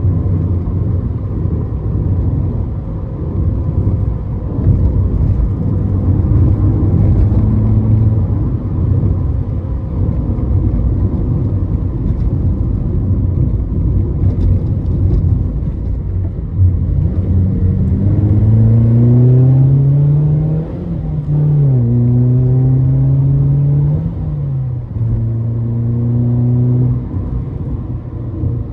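Ford Fiesta ST150's 2.0-litre four-cylinder engine driven on the road over steady road noise. About two-thirds of the way in, it revs up hard under acceleration, with sharp drops in pitch at two gear changes.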